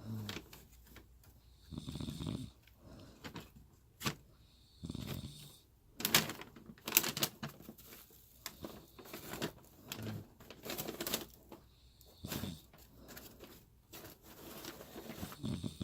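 A woman snoring in her sleep, with low snores every two to three seconds. Sharp clicks come between the snores, and they are the loudest sounds.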